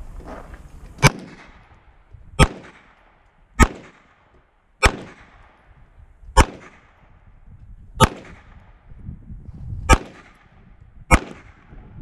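Eight single shots from a compensated CZ 75 TS Czechmate pistol, fired at a slow, deliberate pace of roughly one every one to two seconds, each a sharp crack with a short fading echo.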